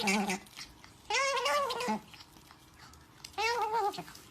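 Otter calling to beg for food: high, wavering squeaky calls, one tailing off at the start and then two of about a second each.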